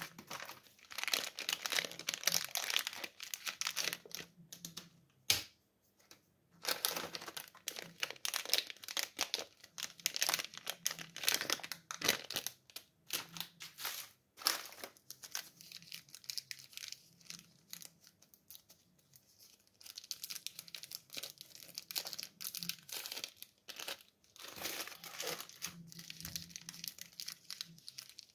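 Plastic candy wrappers crinkling and tearing as sweets are handled and unwrapped close to the microphone, in bursts with short pauses between them.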